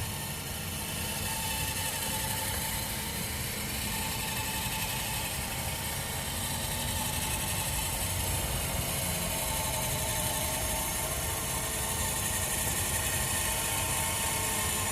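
Small electric motor of a remote-controlled boat spotlight running steadily as it rotates the light head, with a faint hum.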